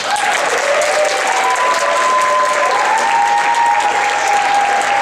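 A school theatre audience bursts into loud applause and cheering, with long held whoops over the clapping.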